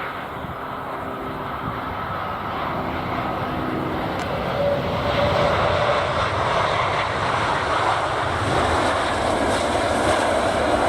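Jet engines of a landing Airbus A330-300 airliner. A steady engine hum fades in the first few seconds and gives way to a broad roar that grows louder through the second half.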